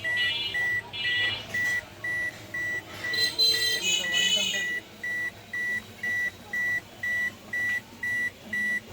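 Electronic beeper sounding one steady high tone in short pulses, about two beeps a second. A louder, higher-pitched sound cuts in briefly near the start and again from about three to four and a half seconds in.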